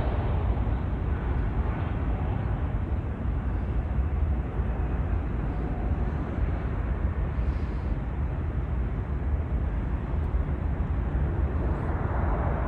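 Jet airliner engine noise: a steady rumble that dies down over the first few seconds and swells again near the end.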